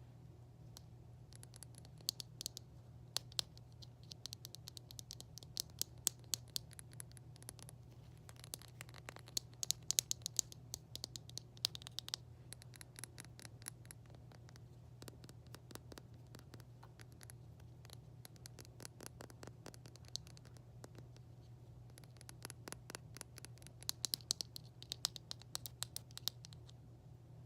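Fingers tapping and scratching on a hard object close to the microphone, in quick flurries of sharp clicks with short pauses between.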